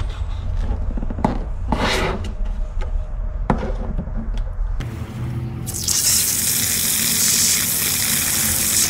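Water gushing from a newly installed brass outdoor faucet: a loud, steady rush that starts about six seconds in and cuts off abruptly at the end. Before it, a few sharp knocks over a low rumble.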